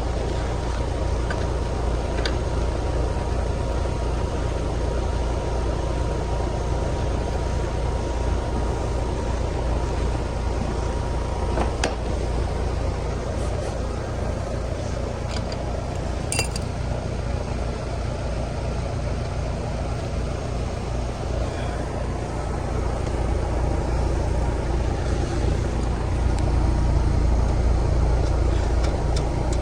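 Ruud split-system outdoor condenser unit running: a steady low hum from the compressor with the rush of the fan's airflow, and a few light clicks from work on the unit.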